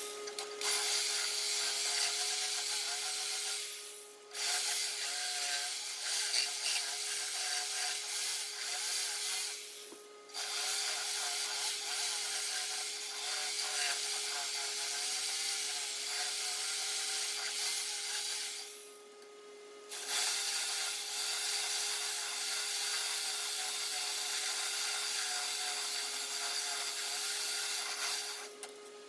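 Corded reciprocating saw cutting chamfers along the edges of a soft western cedar block, running in four long stretches with three brief pauses between them.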